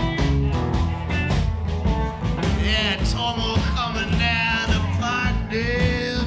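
Live folk-rock band playing: strummed acoustic guitar, electric guitar, bass and drums, with a voice singing held, wavering notes over them.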